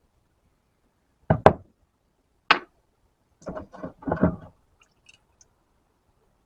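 Freshly cast lead sinkers being handled and set down, giving a series of dull knocks on a hard surface: a double knock, a single one, then a quick cluster of several.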